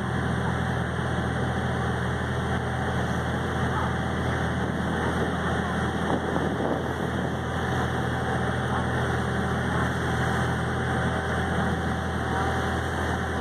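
A ferry's engine running steadily, a low drone with a constant hum, under the rush of churning wake water.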